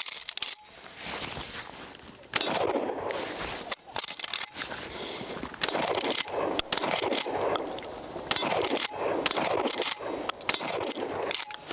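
Remington 870 12-gauge pump-action shotgun firing several shots of birdshot a few seconds apart, with the pump racked between shots.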